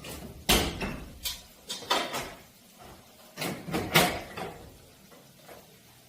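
A string of sharp knocks and clunks from hard objects. One loud knock comes about half a second in, a cluster comes around two seconds and another around four seconds, and the rest is quieter.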